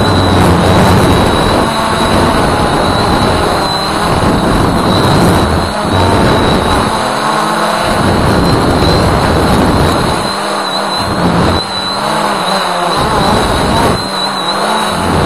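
Loud wind rumble buffeting the microphone of a flying Walkera Voyager 3 quadcopter, under a thin steady high whine from its motors and propellers. The rumble drops away briefly a few times.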